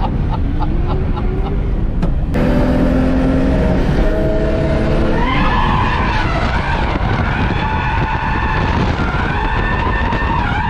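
Holden VS Commodore's standard V6 engine revving hard, heard inside the cabin while the car drifts, its pitch climbing a couple of seconds in, with tyres squealing through the second half.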